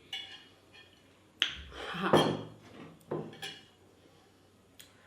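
Dishes and a utensil clinking and scraping at the table while eating, a handful of separate clinks, the loudest about two seconds in with a dull knock under it.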